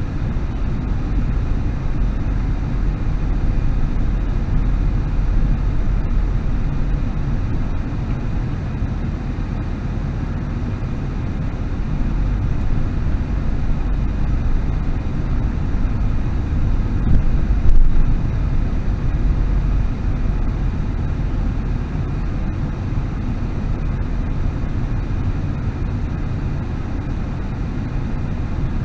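Steady low rumble of a car driving slowly in traffic, engine and road noise picked up by a dash cam's microphone inside the car, with a brief thump about eighteen seconds in.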